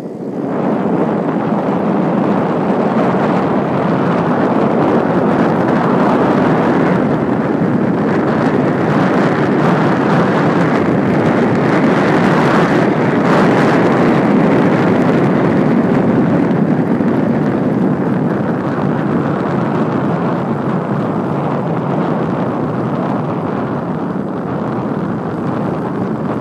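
Steady wind rushing over the microphone of a camera moving along a road, a loud, even noise that eases slightly in the second half.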